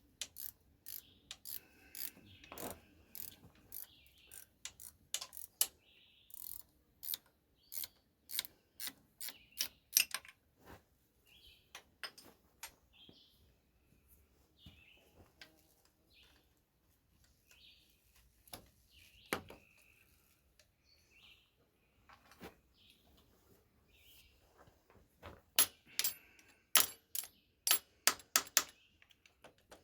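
A ratchet wrench clicking in quick runs as the starter bolts are backed out of a Ford 8N tractor, with a long pause in the middle and a second run near the end.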